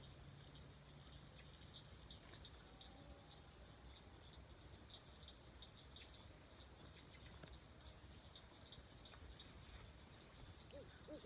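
A faint, steady insect chorus, an even high trill. Right at the end, a short series of low hoots begins.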